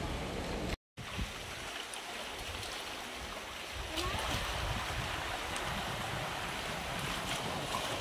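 Sea water washing and lapping against rocks, a steady hiss of surf, with wind rumbling on the microphone at times. The sound drops out completely for a moment about a second in.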